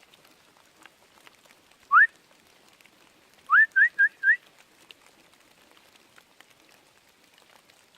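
A person whistling: one short rising whistle about two seconds in, then four quick rising whistles a second and a half later.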